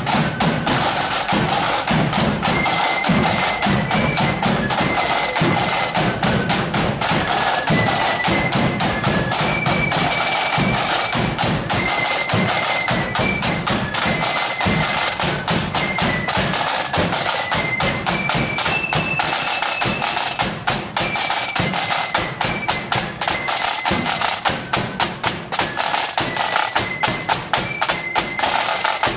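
Marching flute band playing a march: flutes carry a melody over fast rattling side-drum strokes and a bass drum beat.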